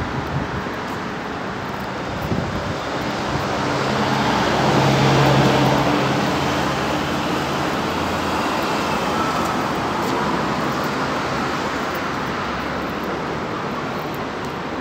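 Road traffic noise: a motor vehicle's engine passes, growing to its loudest about four to six seconds in, over a steady hum of traffic.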